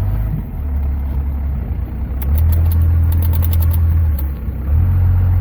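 First-generation Dodge Ram's 5.9-litre Cummins inline-six turbo diesel running as the truck is pulled forward, a low drone that swells louder about two seconds in and again near the end.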